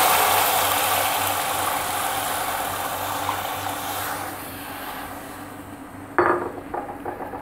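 Water pouring into an aluminium pressure cooker around a leg of lamb, splashing and then tapering off over the first four seconds or so. A short sharp knock comes about six seconds in.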